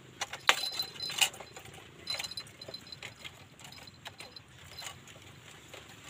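Rapid clicking and rattling of a bird-trap cage's bars as a wild quail pecks and strikes at them to fight the decoy quail inside. The busiest flurry comes between about a quarter second and a second and a half in, with another burst around two seconds and scattered taps after.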